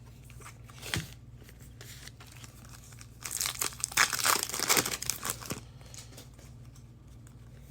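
Plastic wrapper of a football trading card pack being torn open and crinkled, a couple of seconds of crackling starting about three seconds in. A single light tap comes about a second in.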